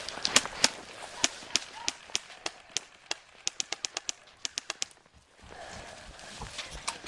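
Airsoft guns firing: sharp snapping shots, scattered at first, then a quick run of about ten shots in under a second and a half, about halfway through, before a short lull.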